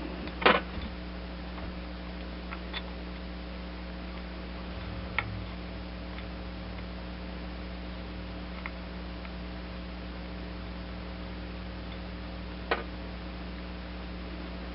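Steady mains-frequency electrical hum, broken by a few sharp clicks and light ticks of small metal carburetor parts and a tool being handled, the loudest clicks about half a second in, around five seconds in and near the end.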